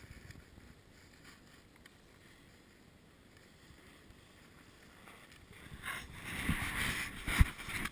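Faint wind hiss at first. About six seconds in, a louder scraping swish of snowboards sliding on packed snow begins, with a few dull thumps, the sharpest near the end.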